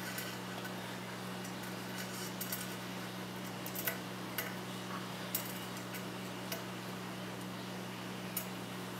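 Scattered small metallic clicks and taps as a small screwdriver works screws and washers along an aluminium LED heatsink, over a steady low hum.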